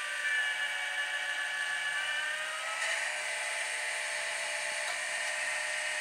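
Woodland Mills (Grindlux) bandsaw-blade sharpener running, its electric motor whining as the grinding wheel works along the blade's teeth. The pitch sags slowly and then shifts with a faint click about three seconds in. The sharpener is powered from the sawmill's smaller battery, which the owner says makes it run slower.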